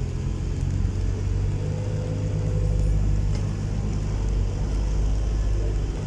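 Diesel engine of a Volvo wheeled excavator running steadily with a low drone as the machine works its boom and bucket.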